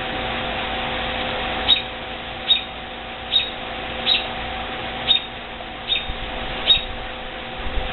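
A bird chirping repeatedly: short, high chirps about once every second, over a steady low hum.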